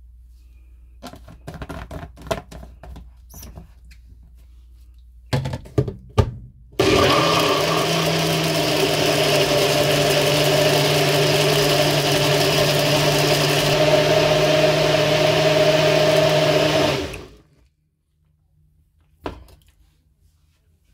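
NutriBullet personal blender: the cup clatters and clicks as it is handled and locked onto the base. Then the motor runs steadily for about ten seconds, blending chunks of fruit in liquid, and cuts off. A single knock follows near the end.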